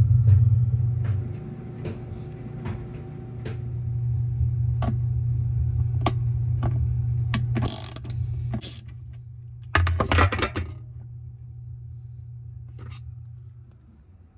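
Washing machine mechanism: a low steady hum with scattered clicks and rattles, and two short scraping rushes about eight and ten seconds in. The hum stops shortly before the end.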